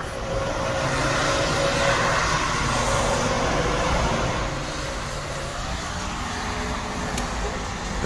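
Road traffic passing on wet pavement, with tyres hissing. One vehicle's noise swells past in the first half, then it settles back to a steady traffic hum.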